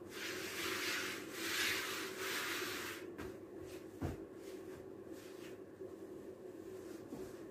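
A hand rubs flour across a silicone pastry mat, a dry brushing hiss in several strokes for about three seconds. About four seconds in comes a soft thump as a ball of dough is set down on the mat.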